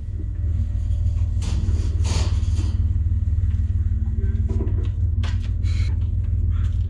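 Machinery running with a steady low hum and a faint higher tone over it, with a few short knocks and clatters of handling on top.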